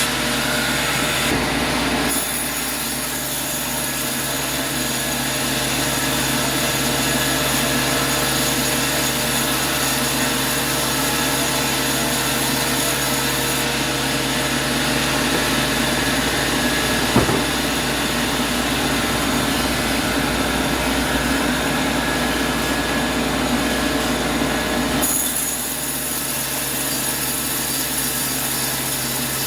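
Sawmill running with a steady mechanical drone and hum, with one sharp knock partway through. The sound changes abruptly twice, once near the start and once near the end.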